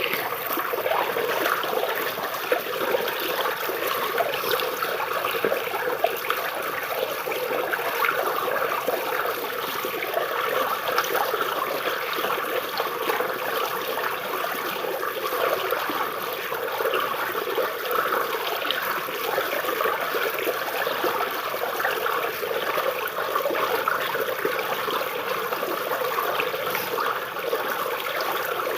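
Stream water flowing and trickling under tree roots: a steady babbling with many small splashes.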